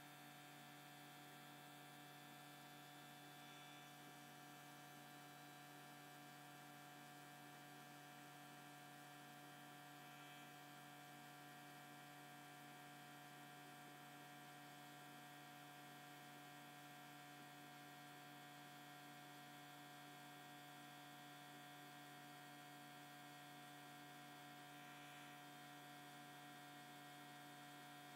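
Near silence with a faint, steady electrical hum made of several fixed tones.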